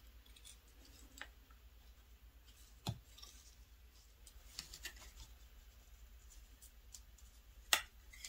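Knife whittling a wooden spatula handle: faint small scraping cuts and clicks, with a sharper click about three seconds in and another near the end.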